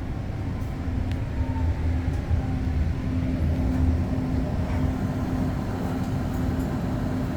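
REM light-metro train heard from inside the car, running with a steady low rumble and an electric hum as it slows into the station. A faint falling whine comes about a second or two in.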